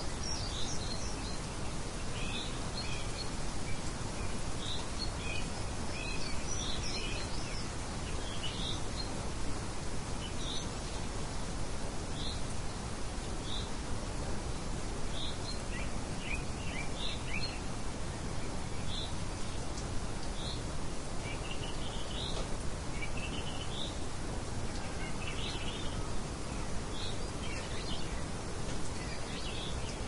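Steady rain hiss with small birds chirping over it: short, high calls scattered through the whole stretch, sometimes in quick clusters.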